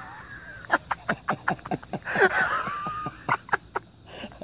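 A cow crunching and chewing an apple it has trouble eating: a rapid run of short, sharp crunches, about four or five a second.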